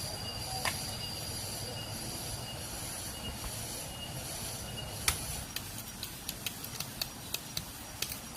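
Forest insects, cicadas or crickets, keeping up a steady high-pitched drone. From about five seconds in, a run of sharp, irregular clicks or taps sounds over it, the first the loudest.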